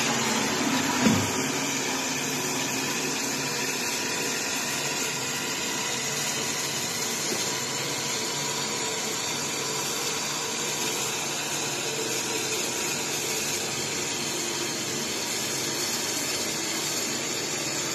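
Toilet cistern refilling through its fill valve after a flush: a steady hiss of water running in. The tail of the flush is heard in the first second. The valve has a new diaphragm washer and fills at the normal rate.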